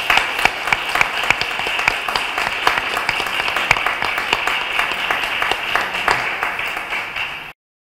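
Audience applause: many hands clapping steadily. It cuts off suddenly near the end.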